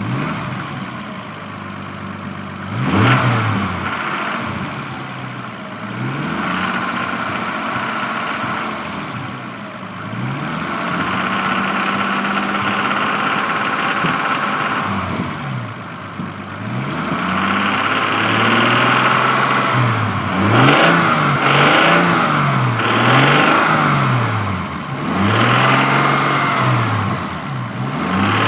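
Toyota Supra MK3's inline-six engine revved again and again from idle, its pitch rising and falling with each blip. The blips are slow at first and come quicker in the second half. An odd extra noise comes in on acceleration, which the owner suspects comes from the valves or injectors.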